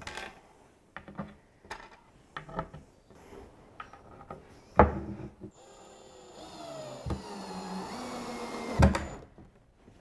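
Light knocks and taps as a cabinet panel and screws are set in place, then a loud knock, then a Ryobi 18V cordless drill driving a long assembly screw into the panel: its motor whine runs about three seconds, dipping and rising in pitch, and ends with a sharp knock.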